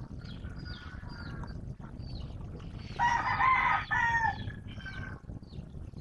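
A rooster crows once, loudly, about three seconds in, the call dropping in pitch at its end. Small birds chirp throughout over a low, steady background rumble.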